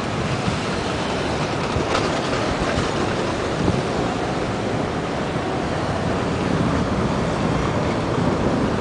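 Steady rumbling outdoor noise of wind on the microphone, surf and street traffic, with no single sound standing out.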